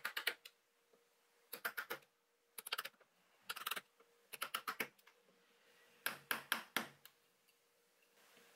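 A steel chisel tapped with a hammer into Taiwan cypress along a dovetail baseline. The taps come in quick bursts of three to six light blows, about six bursts in all, with the chisel moved to the next socket between bursts.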